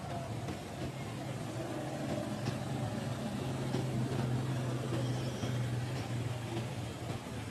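A steady low mechanical hum, with faint scattered clicks over it.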